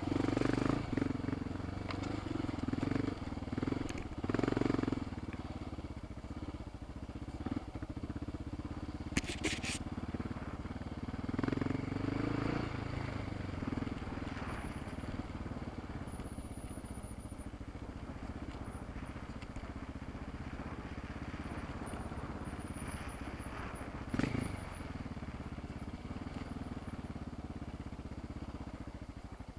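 Off-road motorcycle engine on a dirt trail, revving up and down in the first few seconds and again about twelve seconds in, then running steadier and lower. Short clatters come from the bike over rough ground.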